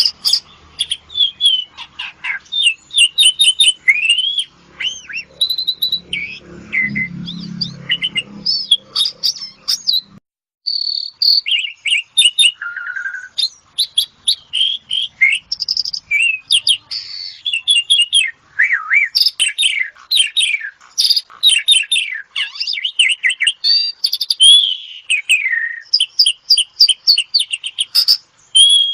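Asian pied starling (jalak suren) singing a long, varied song of rapid chirps, whistles and trills, cutting off briefly about ten seconds in.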